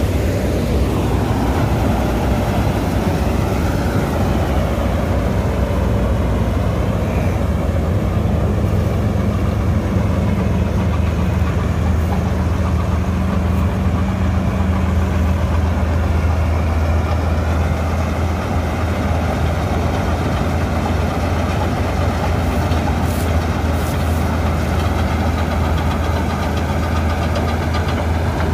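Gill 961 combine harvester running as it cuts wheat, a steady, loud engine drone with a deep hum and the rattle of the machine.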